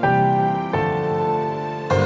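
Background music: slow, held keyboard chords that change twice.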